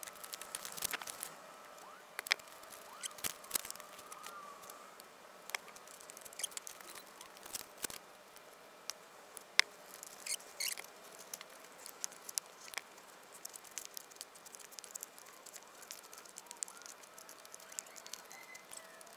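Scattered light taps, clicks and scratchy rubbing as cut foam board panels are handled and pressed together into a small box, with the sharpest tap about nine and a half seconds in. A faint steady tone sits underneath.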